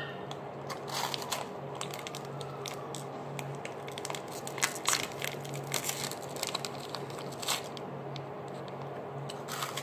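Plastic snack wrappers crinkling as they are torn open and handled, mixed with a crunchy, Cheeto-like corn puff being chewed. Irregular crackles come throughout over a steady low hum.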